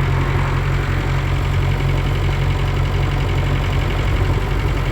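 Engine of the vehicle being driven, running with a steady low rumble, heard from inside the cab.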